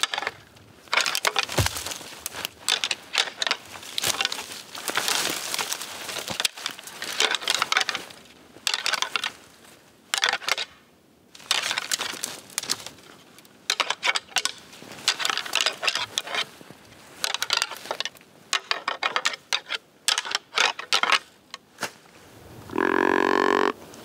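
Repeated bursts of clattering and rustling in dry brush, in clusters with short pauses. Near the end comes one short, low grunt from a deer grunt call.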